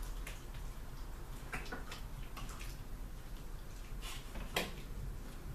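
A long spoon knocking and scraping against the sides of a brewing pot while mash is stirred: a few scattered clicks and knocks over a steady low hum.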